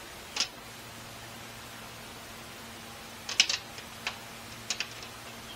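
Scattered light clicks and taps of small window-kit parts being handled, loudest as a quick cluster a little over three seconds in, over a steady low hum.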